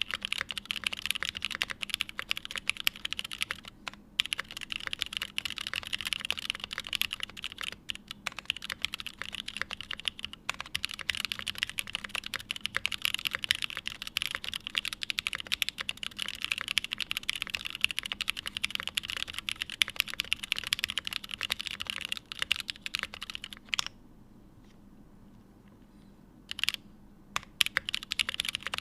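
Typing on a Day Off 60 mechanical keyboard: aluminium plate, lubed and filmed Hyperglide linear switches with Kailh stems, GMK Modo keycaps. Fast, continuous keystrokes stop for about three seconds near the end, with a stray keystroke or two, then pick up again.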